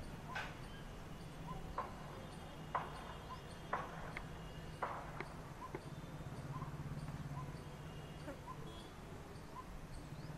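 Soft, short 'tuk' notes of a coppersmith barbet, repeated roughly once a second over a low steady hum. About six sharp knocks stand out in the first half.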